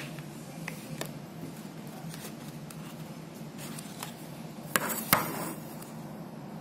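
Light handling clicks and knocks of a hand moving an object on a tabletop, with two sharp taps close together about five seconds in, over a steady low hum.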